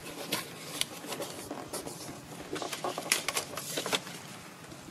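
A hand rummaging inside a leather door map pouch, with papers rustling and irregular light clicks and scrapes.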